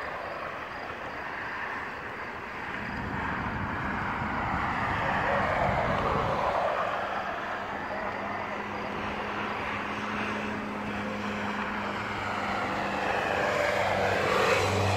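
Steady engine noise, a broad rushing drone that slowly swells and eases, with a low hum growing stronger in the second half.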